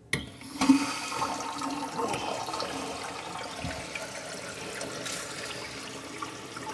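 Water rushing through the toilet supply line into a BioBidet Discovery DLS bidet seat as the shutoff valve is opened, a steady hiss of filling after a couple of knocks in the first second.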